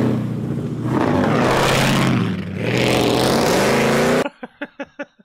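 Supercharged V8 of a Ram 1500 TRX pickup running hard as the truck pulls away, its pitch rising twice as it revs. The engine sound cuts off abruptly about four seconds in.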